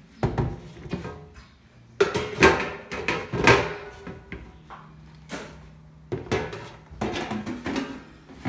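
Background music: a plucked string instrument strummed in repeated strokes that ring on between them.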